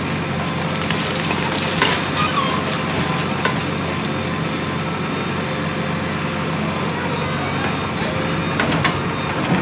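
JCB 3DX Plus backhoe loader's diesel engine running steadily under work, with a few brief knocks about two and three and a half seconds in and again near the end.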